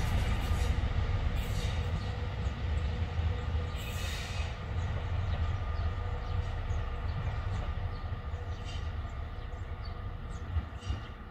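HŽ series 7122 diesel-hydraulic railcar running, a steady deep diesel rumble that fades slowly as the train draws away, with a short hiss about four seconds in.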